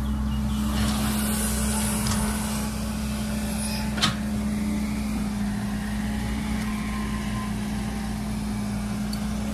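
Caterpillar tracked excavator's diesel engine running steadily as its bucket digs earth and rock, with one sharp knock about four seconds in.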